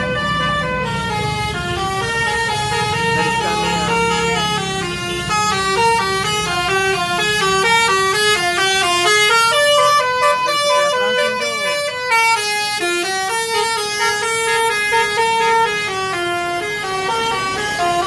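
A coach's basuri 'telolet' multi-tone horn playing a quick melody of short stepped notes, over and over, with children shouting over it.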